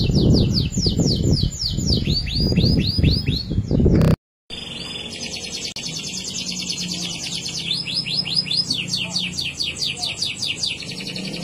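Domestic canaries singing long, rapid trills of repeated downward-sweeping notes. The first bird's song, with a low rumble beneath it, breaks off abruptly about four seconds in, and after a brief gap a second canary's trill starts and runs on.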